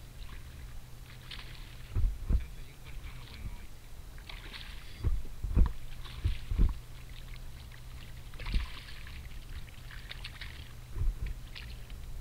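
Water splashing and lapping against a kayak, in irregular soft patches, with several sharp low thumps at uneven intervals and a steady low rumble underneath.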